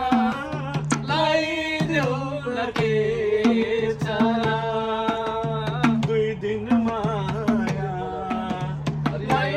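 A song playing: a voice singing a wavering melody over a steady hand-drum beat.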